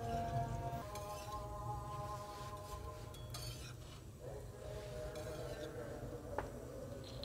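A few light metallic clinks of a steel spatula against an iron tawa while a paratha fries, over soft held tones that shift in pitch now and then.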